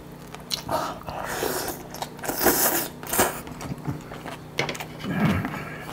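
A person eating braised pork back-bone meat close to the microphone: irregular wet chewing and biting noises with a few sharp clicks.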